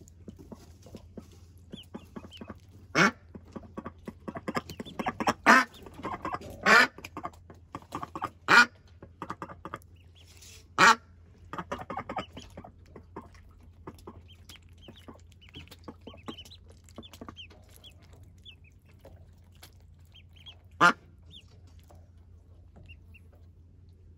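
Welsh Harlequin ducklings peeping softly and dabbling in shallow water, with small splashes. About six loud, short calls from an adult fowl stand out, five in the first half and one near the end.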